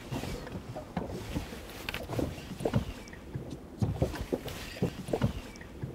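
Small waves slapping and lapping against the hull of a drifting boat, an irregular run of soft knocks and splashes.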